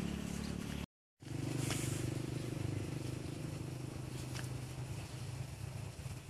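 Steady low engine drone, an engine running at a constant idle, with a couple of faint clicks; the sound drops out completely for a moment about a second in.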